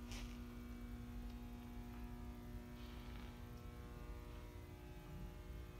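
A steady low electrical hum with a slight buzz, unchanging throughout, and a brief faint rustle right at the start.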